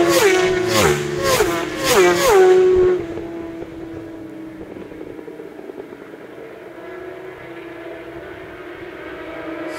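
Several racing superbikes pass at full speed one after another, each engine's high note dropping sharply in pitch as it goes by. About three seconds in they pull away into the distance, leaving a faint engine drone.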